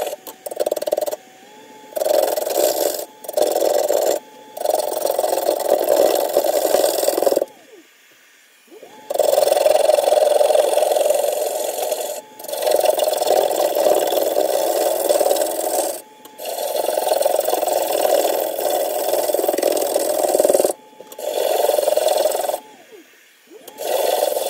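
A gouge cutting a spinning ash blank on a wood lathe, in a run of passes of one to four seconds each, broken by brief pauses between them.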